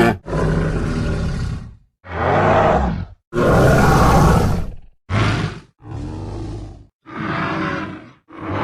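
Creature sound effects for a cartoon Pachyrhinosaurus: a string of separate roars and grunts, about seven calls each a second or so long, with brief silences between them.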